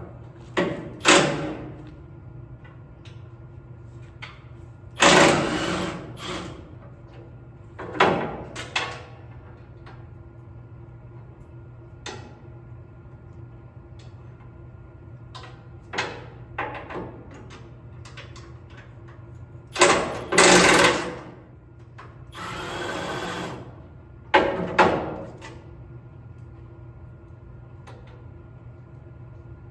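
A handheld power tool running in about seven short bursts, each a second or two long, with gaps between them, as bolts are taken out to remove a fire extinguisher bracket.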